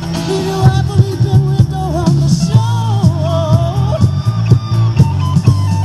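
A song with a singing voice, guitar, a strong bass line and a steady beat, coming off the radio through the speakers of a Toshiba Bombeat WX-1 boombox.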